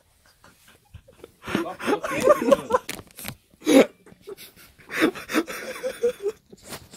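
People laughing in several bursts, with a short loud outburst near the middle.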